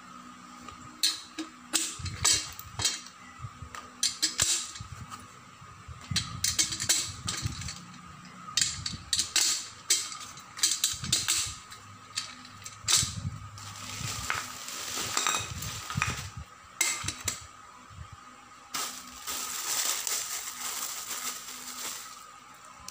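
Office chair caster wheels being pushed into the legs of a chrome five-star base: a quick string of sharp plastic-and-metal clicks and knocks, then longer rustling scrapes as the base is handled on cardboard.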